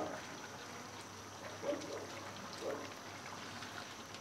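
Thick curry gravy bubbling faintly in a pan as a wooden spatula stirs through it, with a few soft plops.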